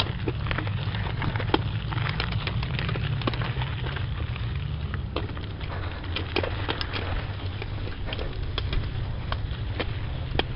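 Mountain bike rolling fast along a dirt singletrack: irregular clicks, crackles and rattles from the tyres and bike over the rough ground, over a steady low rumble.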